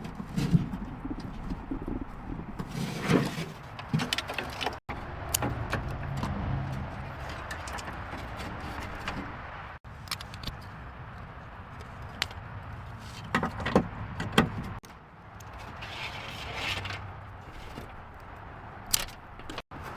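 Clinks, knocks and scrapes of metal tools and car parts being handled during work on an old car, in several short cut-together stretches.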